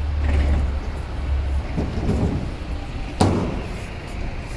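City street traffic noise, with a low rumble that dies away about a second and a half in and a single sharp knock about three seconds in.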